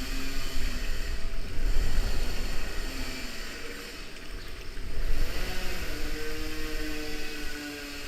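Raft ride on a river-rapids attraction: water rushing under a low, uneven rumble. A steady droning tone comes in from about five and a half seconds in.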